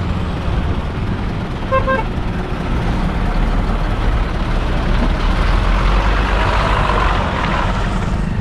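Cement mixer truck's diesel engine passing close by, getting louder to its peak about six to seven seconds in, then easing off. A vehicle horn gives two short toots about two seconds in.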